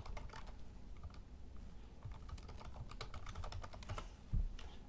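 Computer keyboard typing: a quick run of key clicks as a terminal command is typed, with one heavier low thump near the end.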